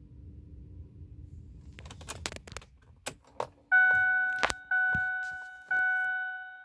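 Keys rattle and click, then the truck's cab warning chime starts a little past halfway, a two-tone electronic ding repeating about once a second, each ding fading out. A low steady hum sits underneath at the start.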